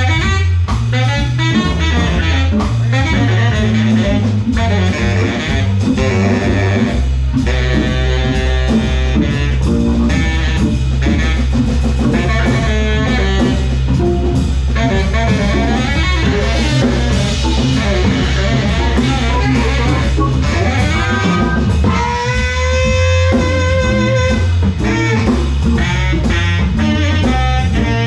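Jazz organ trio playing: baritone saxophone lead over organ, with a bass line and a drum kit keeping time.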